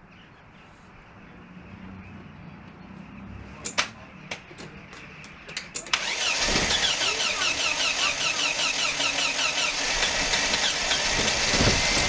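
A few sharp clicks and knocks, then about six seconds in the Mercedes W123's starter motor cranks the freshly refitted carbureted engine with a fast, even rhythm, on a battery that is running low. The engine does not catch.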